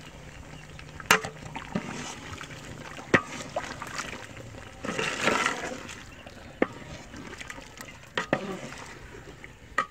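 A ladle stirring chicken gravy thinned with freshly added water in a large aluminium cooking pot: the liquid sloshes, loudest about halfway through, with several sharp knocks of the ladle against the pot.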